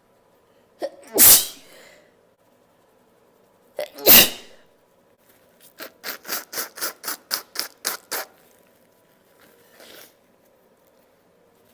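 Two loud, unstifled human sneezes about three seconds apart, each with a quick intake of breath just before it. These are followed by a rapid run of about a dozen short noises, roughly four a second.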